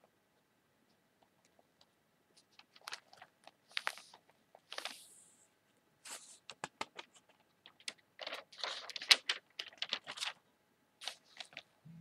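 Newspaper pages handled by hand: scattered taps and crackles of paper, two longer sliding rustles about four to five seconds in, and a dense run of crinkling about eight to ten seconds in.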